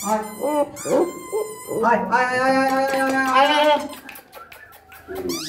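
German Shepherd puppies whining and yelping: a few short high-pitched yelps, then one long drawn-out whine lasting about two seconds.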